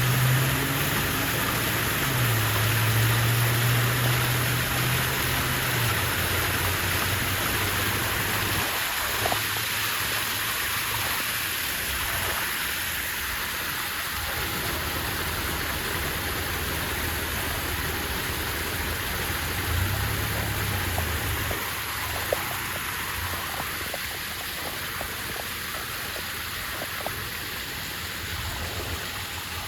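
Waterfall rushing steadily. A low hum sits under it for the first few seconds and again briefly about two-thirds of the way through.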